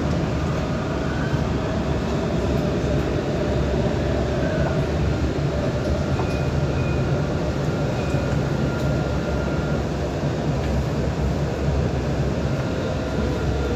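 Dubai Tram (Alstom Citadis) car running along its track, heard from inside the cabin: a steady low rumble with faint high whining tones above it.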